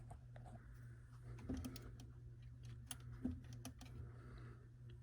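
Faint, scattered clicks and light taps from handling a weather radio, with a few a second at most, over a steady low hum.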